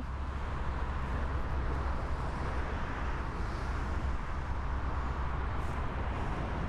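Jet aircraft engines running across the airfield: a steady roar with a heavy low rumble and a faint steady whine.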